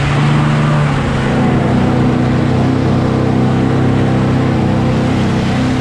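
Dodge Ram pickup's engine held at high revs under hard acceleration, one steady high engine note, with wind and tyre noise.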